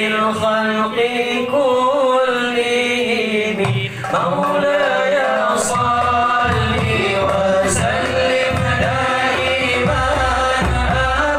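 Men's voices singing a selawat, a devotional chant in praise of the Prophet, into a microphone. A low, steady beat joins about halfway through.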